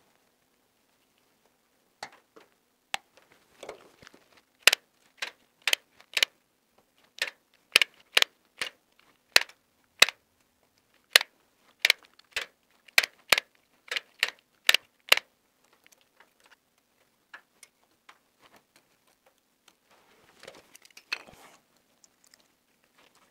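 Hand cutters and pliers snapping through the copper conductors of electrical cables as they are cut and stripped at flush wall boxes: a run of about twenty sharp clicks at roughly two a second, then a short rustle of wires being bent near the end.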